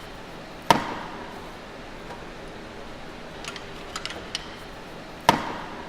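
Two sharp metal-on-metal knocks about four and a half seconds apart, each with a brief ring, with a few light clicks between: hand tools striking the alternator and its mounting bracket while the alternator is freed from the bracket.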